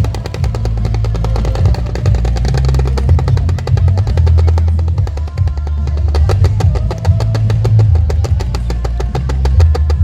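Loud music with a drum beat and heavy bass, with a fast, even run of sharp clicks over it.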